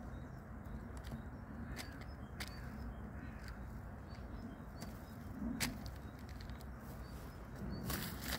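Steady low rumble of distant city traffic, with a few light clicks and rustles from litter being picked up and bagged.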